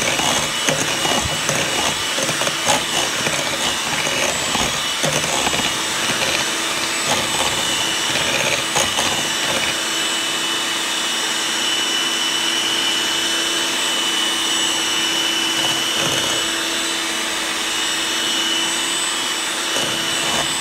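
Electric hand mixer running, its beaters churning thick batter in a bowl. The first half is uneven, with scattered knocks, and the second half settles into a steady whine.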